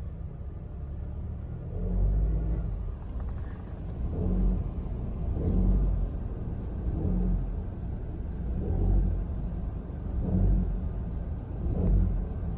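Engine noise from a 2017 Honda Civic RS Turbo in Drive with the AC on and the throttle applied, heard from inside the cabin: a low rumble that swells and fades about every one and a half seconds. The mechanic traces the noise to a failing automatic belt tensioner that grinds under load while the serpentine belt flaps up and down.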